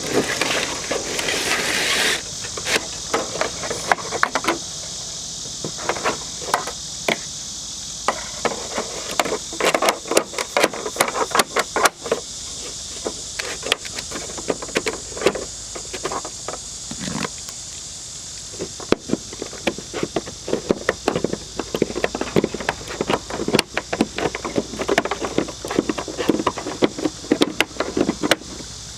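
Irregular clicks, taps and light rattles of sheet-metal gutter guard and drip edge sections being handled and fitted into a gutter, over a steady high hiss.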